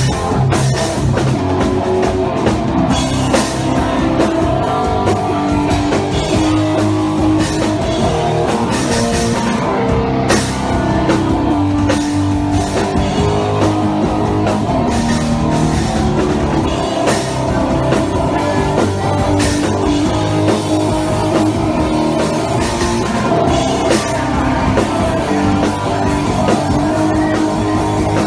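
A rock band playing live and loud, with electric guitars over a drum kit.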